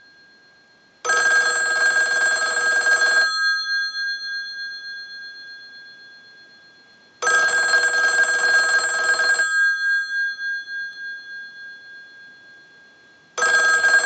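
Western Electric 500 rotary desk telephone's bells ringing on a standard ring cycle. There are three rings of about two seconds each, starting about six seconds apart, and each dies away slowly before the next; the third starts near the end. This is the ringer working after its repair.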